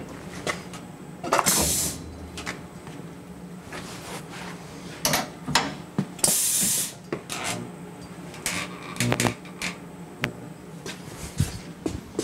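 Irregular clicks and knocks of handling around a CNC mill, with two short hissing bursts, one about a second and a half in and one about six seconds in, over a faint steady hum.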